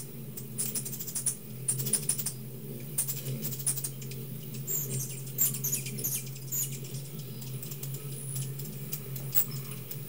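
Hummingbirds giving many short, very high chip and squeak calls in scattered quick runs, over a steady low hum.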